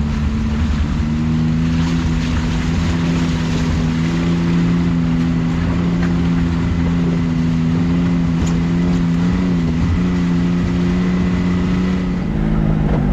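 Can-Am Maverick X3 side-by-side engine running at a steady, moderate speed while the machine drives along a trail. The pitch stays nearly even, with a brief dip and recovery about ten seconds in.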